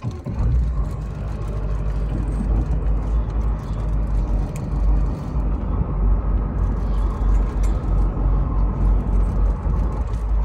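Charter fishing boat's engine coming up abruptly and running steadily with a deep drone.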